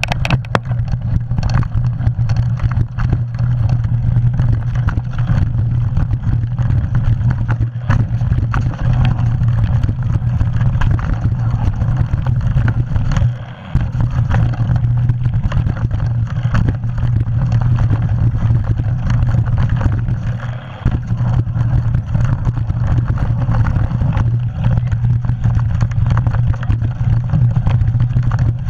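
Mountain bike riding fast down a rough dirt singletrack: steady wind rush on the handlebar-mounted camera's microphone mixed with the bike clattering and rattling over roots and rocks. The noise dips briefly twice.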